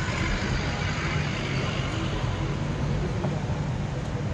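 Steady background rumble and hiss of street traffic.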